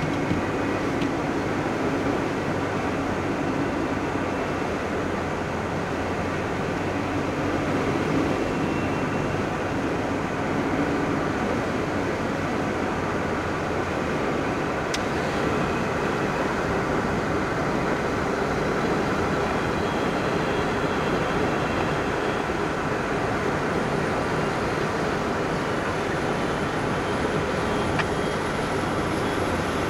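Steady rumble and road noise from inside a moving car driving alongside a moving freight train, with the train's running noise mixed in.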